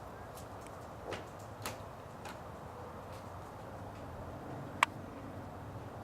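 Steady low background noise with a few faint clicks in the first half and one sharp, loud click near the end.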